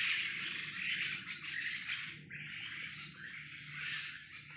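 Harsh, buzzing calls from an unseen animal in the undergrowth, swelling and fading about once a second, taken by the hikers for a strange bird.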